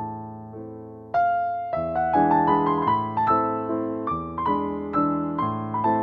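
Background piano music. A soft phrase dies away, then a louder run of notes starts about a second in.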